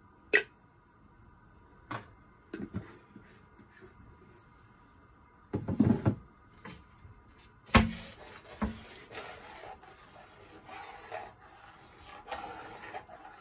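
Separate knocks and clatter of kitchen utensils: a spoon against a plastic ghee jar and things being set down on the stove, with a loud knock about eight seconds in. After that comes continuous scraping as a metal ladle stirs thick carrot kheer in an aluminium pot.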